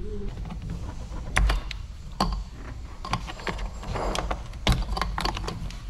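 Irregular plastic clicks and knocks as hands unclip and pull off a car's air filter housing and intake hose, with a steady low hum underneath.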